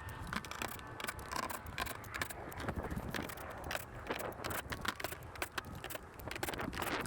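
Irregular sharp clicks and light rattling from handling corrugated plastic roof panels.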